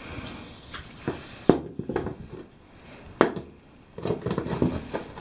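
Metal battery terminal clamps handled on a workbench: scattered small clicks and knocks, with two sharper knocks about a second and a half and three seconds in, then a cluster of lighter taps near the end.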